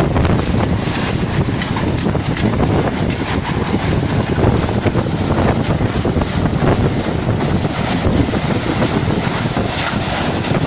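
Strong gusty wind blowing hard and buffeting the microphone in a steady loud roar.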